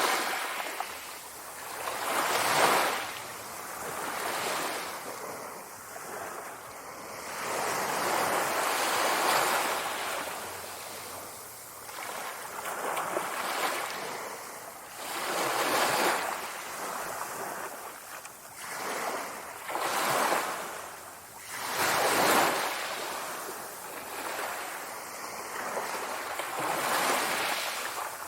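Sea waves breaking and washing in, a rushing hiss that swells and falls away every two to three seconds.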